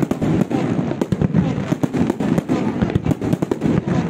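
Fireworks display: many aerial shells bursting at once, giving a rapid, unbroken run of bangs and crackles over a deep rumble.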